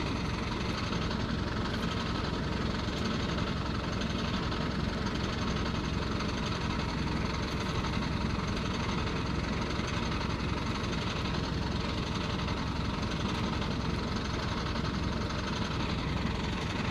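Crane engine idling steadily, a low, even sound with no change in speed.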